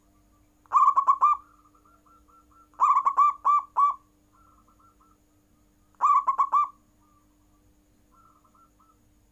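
Zebra dove (perkutut) cooing: three bursts of quick, staccato coo notes, about a second and a half to three seconds apart. Between them come fainter, slightly higher coos from a second dove.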